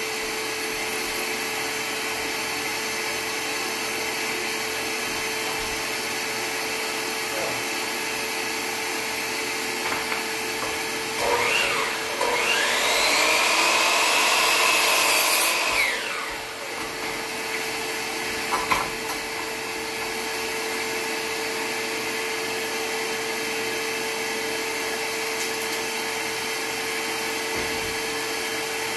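Wet/dry shop vacuum running steadily for dust collection. About eleven seconds in, a DeWalt sliding miter saw spins up, cuts through a tongue-and-groove board for about four seconds, and winds down, followed by a brief knock.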